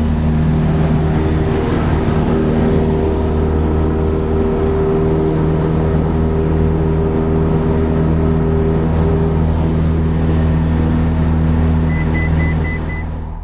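Cessna 172 Skyhawk's piston engine and propeller running at steady high power during the takeoff roll, heard from inside the cabin. Its level drops just before the end.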